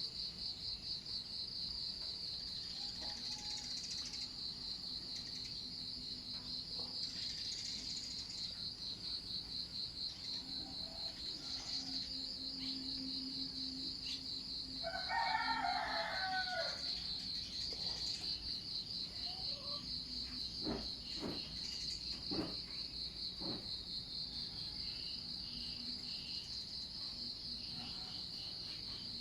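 A steady, rapidly pulsing high insect trill, like crickets, runs throughout. About halfway through, a rooster crows once, for about two seconds.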